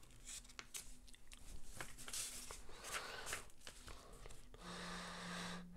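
Faint rustling and small clicks of a paper instruction manual being handled and its pages smoothed, with a faint low steady hum for about a second near the end.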